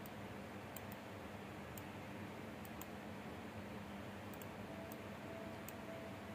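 Low steady hiss of room tone with faint, light clicks scattered about once or twice a second, and a faint steady tone in the last second and a half.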